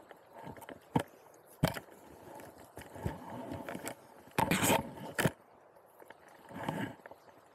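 Steady rush of river current close to the water, broken by a few sharp knocks and two short splashy bursts close to the microphone, the loudest a little past the middle: an angler wading and handling a fly rod.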